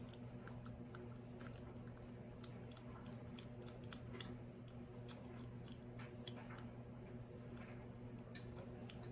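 Irregular small clicks of a Disecu four-digit combination padlock's number dials being rolled to set a new code, over a faint steady hum.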